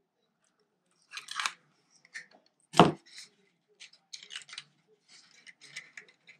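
Cardstock being handled and pressed into a box shape: short bursts of paper rustling and scraping, with one sharp knock on the table about three seconds in.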